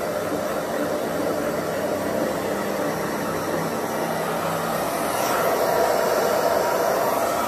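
Handheld hair dryer blowing steadily at close range, the rush of air swelling a little louder about five seconds in.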